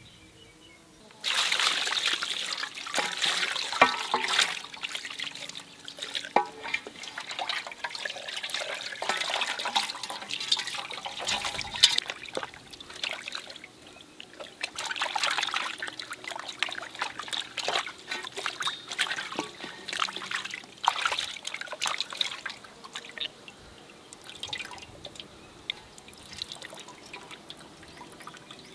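Water trickling and splashing, starting suddenly about a second in, then going on unevenly with many small crackles and brief lulls before tapering off near the end.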